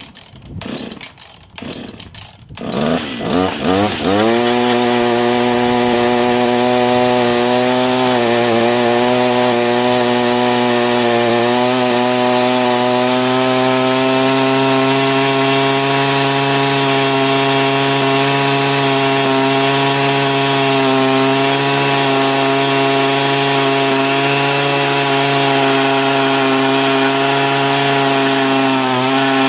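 Husqvarna 562 XP two-stroke chainsaw engine on a hydraulic-brake test stand: a few short sputters, then it picks up about four seconds in and runs steadily at high revs under heavy brake load, set to hold about 7,000 rpm, with slight sags in pitch at first. It is being run in the horizontal back-cut position where it is reported to quit after about a minute, and keeps running here.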